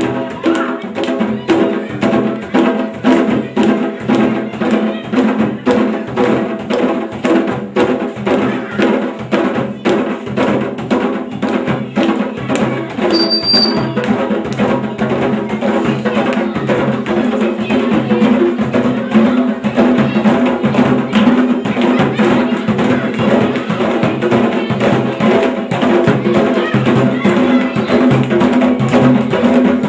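Candombe drum ensemble of Uruguayan tamboriles, barrel drums played with a stick and a bare hand, beating out a dense, steady rhythm.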